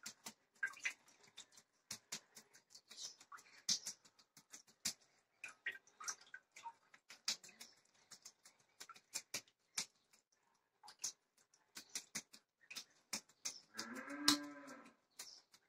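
Soft wet squelching, patting and clicking of a ball of fresh butter being squeezed between bare hands to press out the buttermilk, with drips falling back into the pot. Near the end, a louder pitched call about a second long rises and falls.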